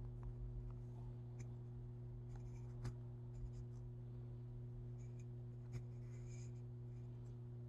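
Faint scratching and rubbing with a few light clicks, the clearest about three seconds in and near six seconds: a brass rod and wooden-bead eyeballs being handled and fitted inside a hollowed wooden puppet head. A steady low hum runs underneath.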